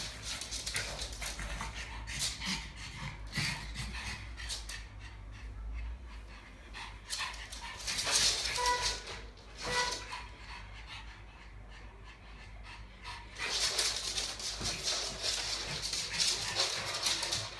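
Two pugs panting and breathing noisily in irregular bursts while they scuffle and one mounts the other, with two short whines in quick succession a little under halfway through.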